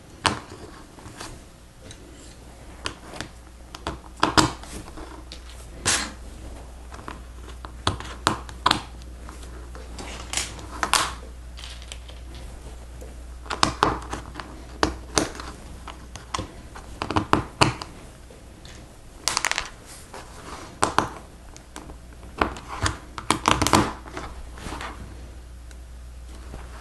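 Hard plastic Lego Technic pieces clicking and rattling as they are handled and pressed together, in irregular sharp clicks a second or two apart.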